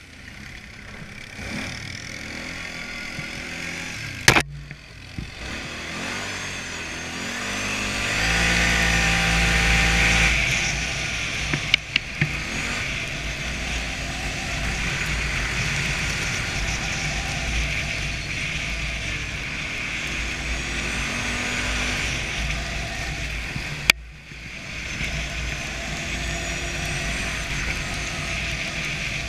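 ATV engine running under throttle while riding over snow, its pitch rising as it revs up about eight seconds in, then holding a steady pace. A few sharp knocks break in along the way.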